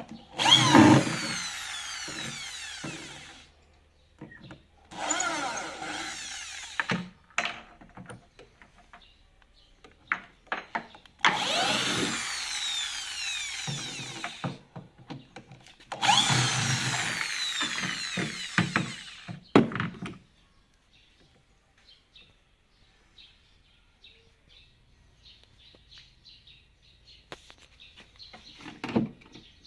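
A drill-like power tool running in four bursts of two to four seconds each, followed by faint scattered clicks.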